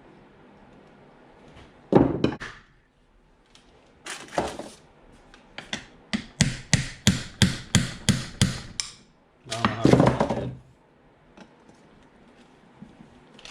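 Steel hammer striking a Honda B16 transmission case to split the case halves apart: two single blows, then a quick run of about ten taps, then a longer rattling burst about ten seconds in.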